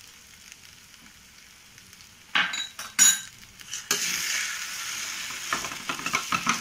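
Fried chicken pieces with onions and green chillies sizzling in a non-stick pan, faint at first; two sharp clinks of the metal spatula against the pan about two and a half and three seconds in. From about four seconds in the sizzling grows louder as the spatula scrapes and stirs the pieces.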